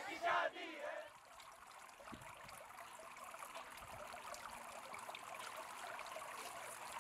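A burst of crowd shouting cuts off about a second in. Then comes a faint, steady trickle of pool water.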